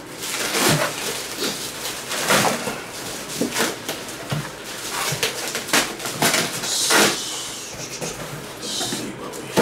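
Packaging being handled and opened by hand: irregular rustling, crinkling and scraping of wrapping and box, with scattered light knocks and a longer crinkle about seven seconds in.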